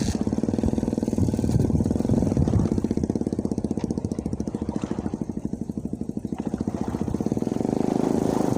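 A small engine running steadily with a fast, even chugging pulse, a little louder about two seconds in and again near the end.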